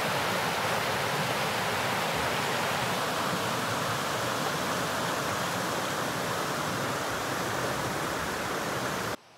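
Small waterfalls and rapids on a river, white water running steadily over rocks. The sound cuts off suddenly just before the end.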